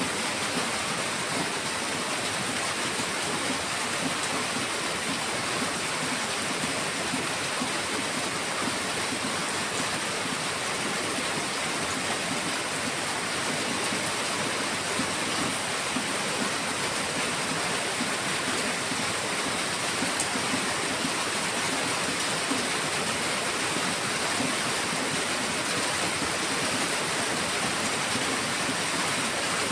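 Heavy rain falling steadily, an even hiss of water that never lets up.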